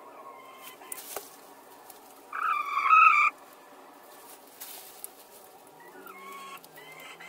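Domestic hens calling in a straw nest box as two hens contend for the same nest: one loud, harsh squawk about a second long a couple of seconds in, then softer, shorter calls near the end, with a few brief rustles.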